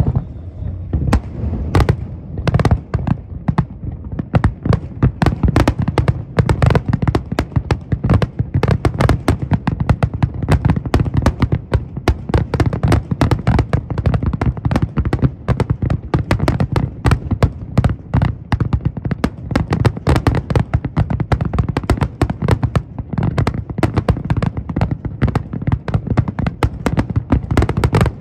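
Fireworks display in full barrage: a dense, continuous rattle of aerial shell bursts and crackle, many loud bangs a second, thickening about a second in.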